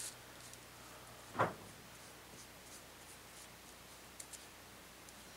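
Quiet, faint scratching of a small paintbrush working a thin India ink wash over a paper brick sheet, with one short soft knock about a second and a half in.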